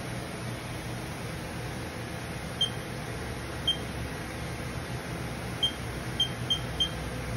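Spindle of a 2000 Haas VF-0 CNC vertical machining centre running with a steady, quiet hum. Six short high beeps sound over it, two about a second apart, then four quickly near the end, typical of key presses on the machine's control panel.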